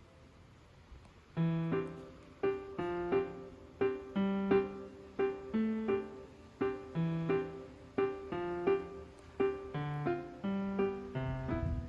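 Background piano music: a gentle, evenly paced pattern of repeated notes that comes in about a second and a half in after a faint lead-in.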